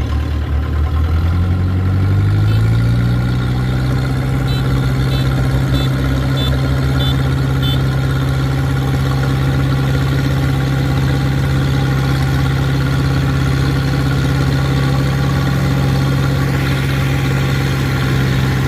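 Farm machine engine rising in speed over the first two or three seconds, then running steady at the higher speed.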